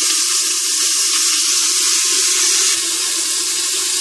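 Chopped onions sizzling in hot ghee in an aluminium pressure cooker, the moment they go into the fat: a loud, steady frying hiss.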